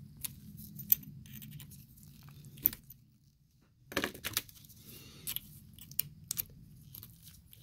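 Scattered small metal clicks and scrapes of hand work with tools on a gear-drive pump housing, a few sharp single ones and a short burst of them about four seconds in, over a faint low hum.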